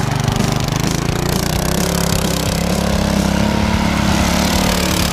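Minibike's small Predator single-cylinder engine running at steady high revs as the bike slides around in the snow.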